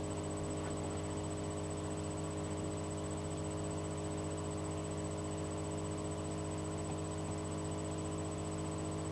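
Steady electrical hum with a constant hiss in the recording, unchanging throughout, with no other sound over it.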